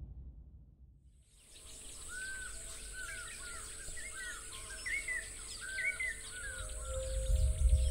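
Nature ambience fading in after about a second and a half: a steady high-pitched insect drone with small birds chirping repeatedly over it. A low rumble builds near the end.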